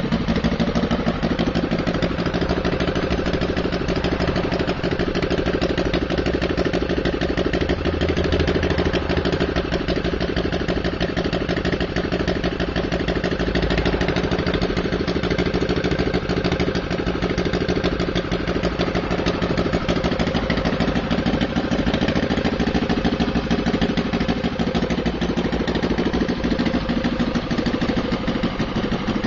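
VT 85 2R 85cc inline twin-cylinder four-stroke petrol model aircraft engine running at a fairly steady speed on a test stand, turning its propeller.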